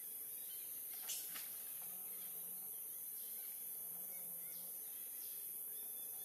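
Forest ambience: insects making a steady high hiss, with a brief crackle about a second in.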